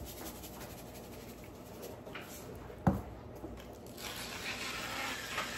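One sharp knock about three seconds in, then from about four seconds a steady gritty grinding from a pepper mill being turned to season the dip.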